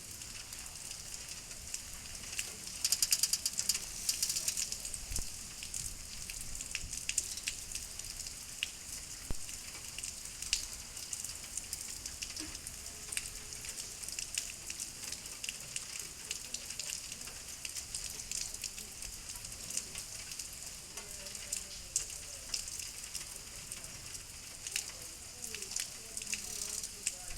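Rain falling steadily, its drops making a dense, fine crackling patter, heavier for a moment about three seconds in.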